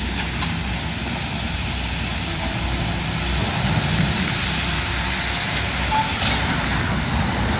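Diesel excavators working a building demolition: a steady engine rumble with a few faint knocks.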